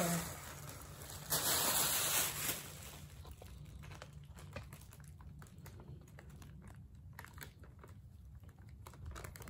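Tissue paper rustling as it is lifted out of a cardboard box for a second or so, then faint scattered clicks and scratches as a hamster moves about inside the box.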